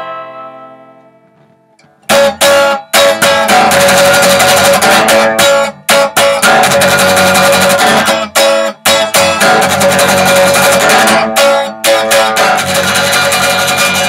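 Electric guitar played solo in an instrumental break between verses: a chord rings and fades over the first two seconds, then loud rhythmic strumming resumes, broken by frequent short stops where the strings are choked.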